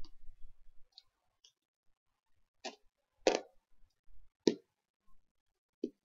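Small plastic toy figures being picked up and set down on a hardcover book's cover: about five separate sharp clicks and taps with quiet between them, the loudest a little past the middle.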